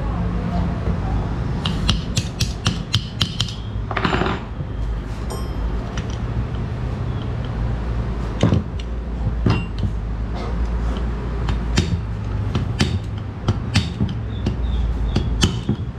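Screwdriver and small steel pins clicking and clinking against a Honda Activa scooter's cylinder head as the pins are pushed home: irregular sharp metallic taps, with quick runs of clicks about two to three seconds in and again in the second half.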